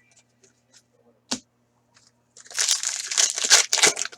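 Foil trading-card pack wrapper crinkling and tearing for about two seconds, starting a little over halfway through, after a single sharp tap about a second in.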